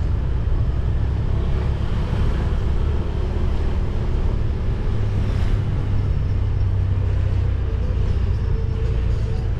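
Steady low rumble of a vehicle on the move, with no break or change.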